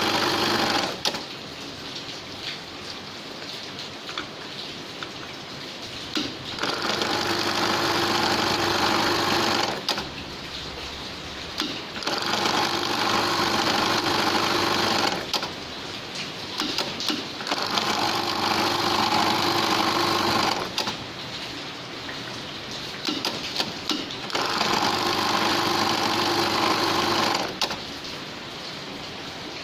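An industrial sewing machine stitching holes into a cap in repeated cycles: about four loud runs of roughly three seconds each, with quieter stretches and scattered clicks between them.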